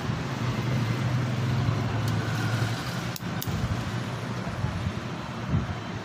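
Steady background noise like road traffic, with a low hum that fades out about three seconds in and a single sharp click shortly after.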